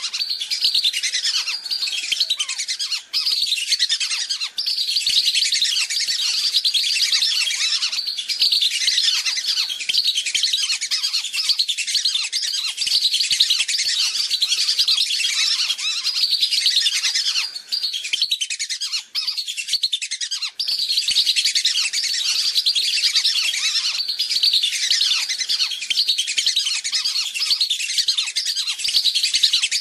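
A flock of whistling ducks (belibis) calling without pause, many thin, high whistles overlapping in a busy chorus, with a few very brief breaks. It is a lure-call recording played to draw wild whistling ducks in.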